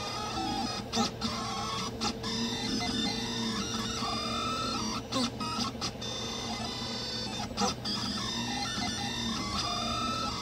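Delta 3D printer printing: its stepper motors whine in tones that glide up and down as the print head moves, over a steady hum, with a few short sharp clicks.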